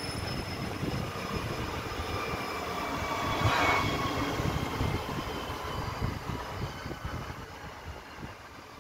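NS ICNG electric multiple unit (Alstom Coradia Stream) rolling past as it slows into the station. Its traction-motor whine has several tones falling slowly in pitch and is loudest about three and a half seconds in as the cab end passes close, then fades as the train moves away.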